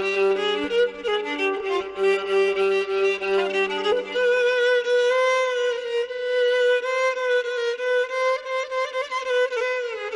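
Violin playing a slow melody with bending, ornamented notes, settling on a long held note in the second half. A low held note sounds underneath and drops out about halfway through.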